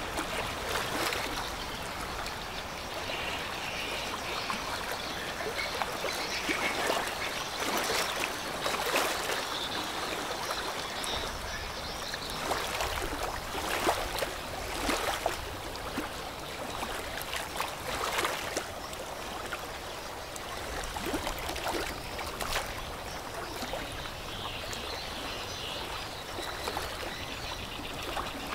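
River water lapping and splashing at the bank, with many irregular small splashes.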